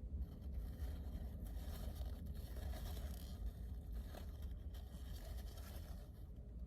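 Rustling and scraping handling noise close by, in uneven scratchy spells lasting about six seconds, over a steady low rumble.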